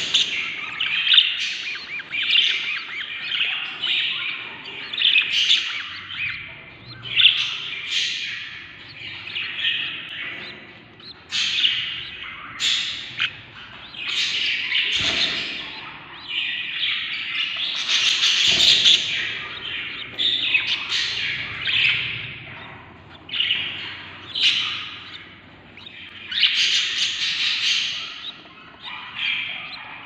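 Several hungry budgerigar nestlings calling in the nest box: their begging calls are chirps and squawks that come one after another, often overlapping, and never stop for long.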